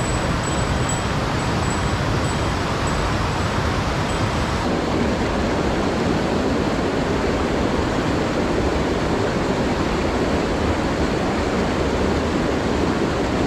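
Mountain stream rushing over boulders: the steady noise of whitewater cascades, growing fuller and deeper about five seconds in. A faint, high repeated note sounds during the first few seconds.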